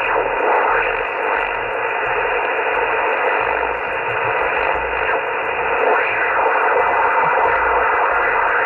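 Receiver audio from a Kenwood TS-130S HF transceiver as its VFO dial is tuned across the 40-metre amateur band: steady hiss and static of a working receiver.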